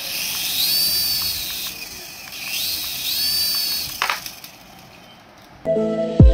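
Toy RC helicopter's small electric motors spinning its twin coaxial rotors up and back down twice: a high whine that rises, holds and falls, over the whir of the blades. A single click about four seconds in.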